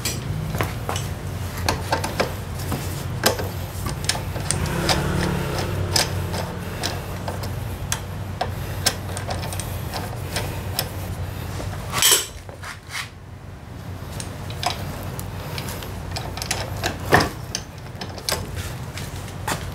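Small metallic clicks and clinks of a T-handle wrench turning the bolts of a scooter's front brake caliper cover, over a low steady hum. Two louder knocks, about twelve seconds in and again near the end.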